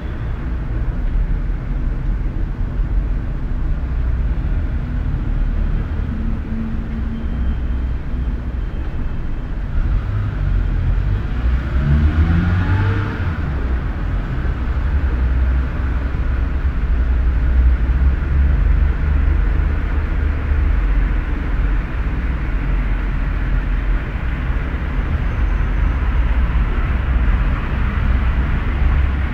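City garage ambience: a steady low rumble of cars and engines. About 11 seconds in, one vehicle's engine rises in pitch as it accelerates, then the rumble settles back to steady.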